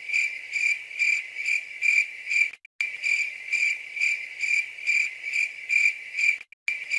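A cricket chirping steadily: a high, continuous trill that pulses about twice a second, cutting out briefly twice.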